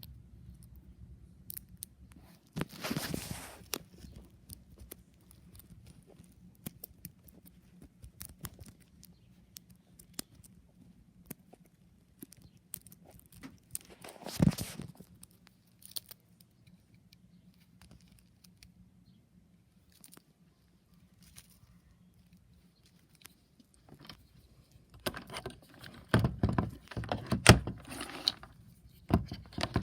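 Handling noise from unboxing a weather radio: bursts of rustling and clattering about 3 s in, again near 14 s, and repeatedly over the last few seconds, with scattered light clicks between them. A faint low hum runs under the first half.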